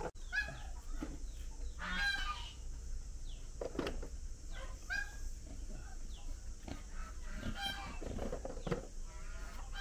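A flock of poultry calling: scattered short squawks and honking cries, a few overlapping, over a low steady hum.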